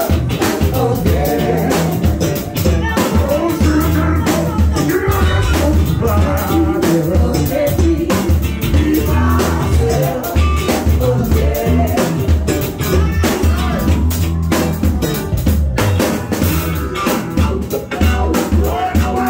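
A live band playing with a steady beat: singing into a microphone over a stage keyboard, electric guitar, bass and drums.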